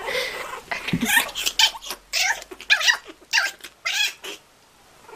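A kitten and a puppy play-fighting: a run of about eight short, high squeals, one every half second or so, ending about four and a half seconds in.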